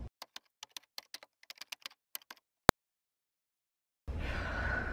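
Key typing: a quick, uneven run of about fifteen key clicks, then one sharp, much louder click, against dead silence. Steady background noise comes back near the end.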